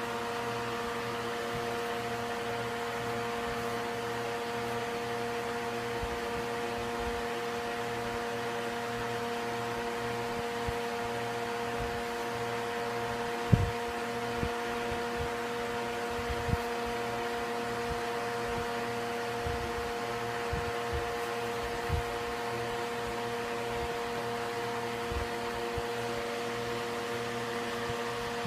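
Steady mechanical hum of room equipment, holding several steady pitched tones, with a few soft low bumps scattered through it, the loudest about halfway through.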